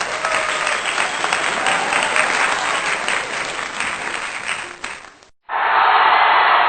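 Crowd applauding, a dense patter of many hands clapping. It cuts off suddenly about five seconds in, and a different, duller-sounding crowd recording starts right after.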